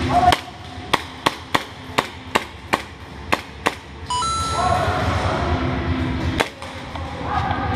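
Airsoft gunfire: a string of about nine sharp single cracks over the first three and a half seconds, then a louder, busier stretch with a few short electronic tones and one more crack.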